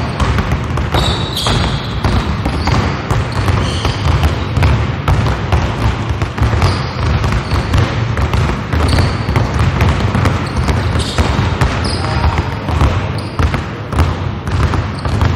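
Several basketballs being dribbled at once on a hardwood gym floor, players each bouncing two balls: a dense, unbroken patter of overlapping bounces.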